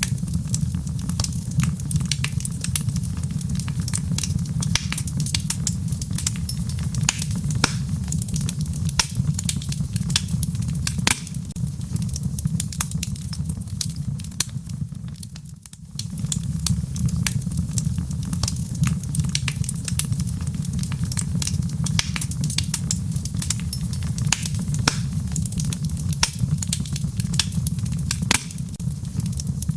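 Wood fire burning in a fireplace: many sharp crackles and pops over a steady low rumble. The sound drops briefly about halfway through.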